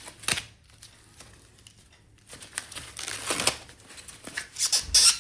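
Packaging being handled and opened: crinkling and rustling with some tearing, getting louder and more crackly near the end.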